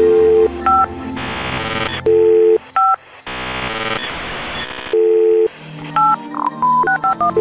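Telephone keypad touch tones: single key beeps, then a quick run of dialed digits near the end, alternating with short low two-tone beeps. Stretches of chord-like music sound between the beeps.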